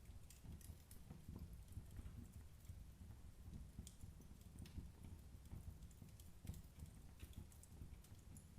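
Wood burning in a fireplace, crackling faintly: irregular small pops and snaps scattered over a low, steady background sound of the fire.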